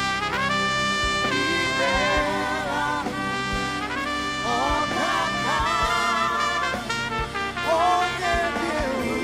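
Trumpet playing a slow worship melody in long held notes, some bending and wavering, over a live band with a steady kick drum.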